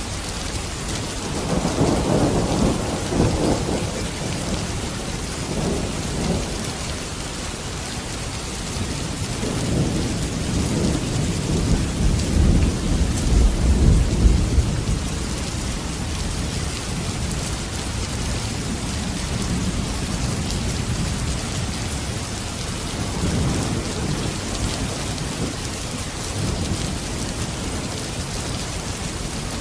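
Steady heavy rainfall with rolling thunder: three low rumbles swell over the rain, the loudest and deepest about halfway through.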